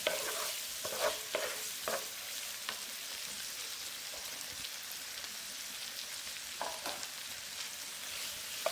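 Sliced onions and tomatoes sizzling steadily in oil in a nonstick pan, stirred with a wooden spatula. The spatula scrapes several times in the first two seconds and again near the end.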